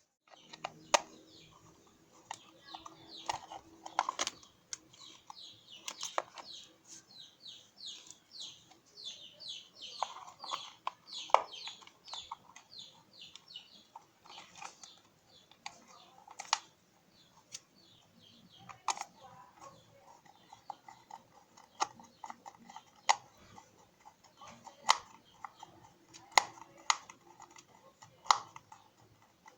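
Sharp clicks and taps of small parts being handled during an egg-beater repair. For about the first dozen seconds there is a fast run of short, high chirps, several a second, before it turns back to scattered clicks.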